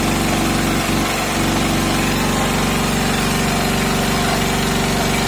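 Sakura Storm D9000E portable generator's engine running steadily under load from a load bank, an even, unchanging hum.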